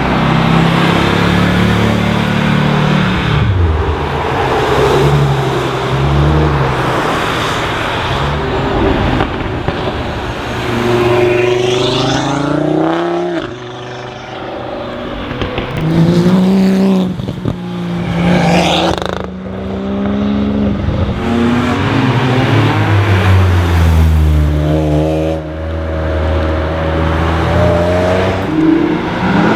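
Several cars pass one after another, accelerating hard. Their engine notes rise in pitch, then drop at each gear change, over a constant layer of road noise.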